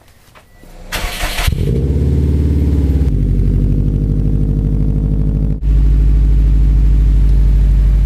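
2006 Subaru WRX's turbocharged flat-four engine starting with a short crank about a second in, then running with a steady deep, pulsing exhaust rumble. A little after halfway it steps up louder.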